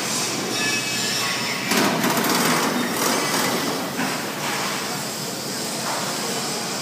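Steady mechanical din of a locomotive repair shop, with metallic clatter and a few knocks, louder for a stretch about two seconds in.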